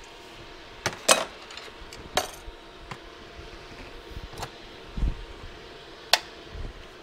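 Several sharp metal clinks and clanks, the loudest about a second in, then a low thud about five seconds in as the sheet-metal door of a Hot Shot 360 electric heat-treating oven is swung shut, followed by a sharp click about a second later.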